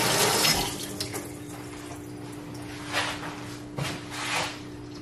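Kitchen faucet running into a stainless steel sink while hands are rinsed under it, shut off within the first second. After that there is a low steady hum and a few soft, brief sounds.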